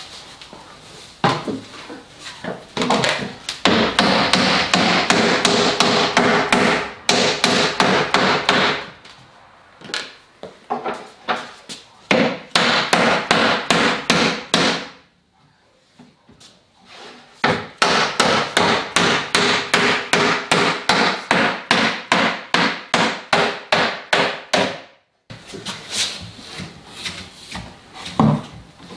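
Mallet blows on a wooden block on top of a veneered MDF carcass, knocking the glued joints together. The strikes come quickly, about three or four a second, in long runs with a short pause about halfway through, and each blow leaves the carcass ringing briefly.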